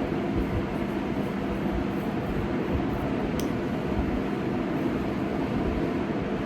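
Steady low mechanical hum with a rushing noise, like a running fan or air conditioner, and a faint click about three and a half seconds in.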